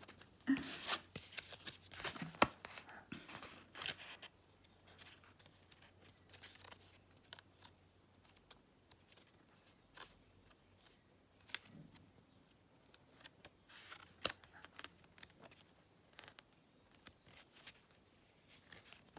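Light paper-handling sounds of tarot cards and a paper guidebook being picked up, flipped and set down: a busy run of rustles and taps in the first few seconds, then scattered soft clicks.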